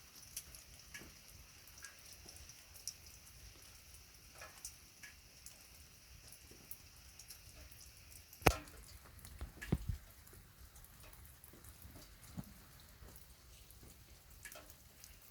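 Raindrops dripping and tapping in scattered single drops over a faint hiss of rain, with one much louder drop about eight and a half seconds in and a few more strong drops about a second later.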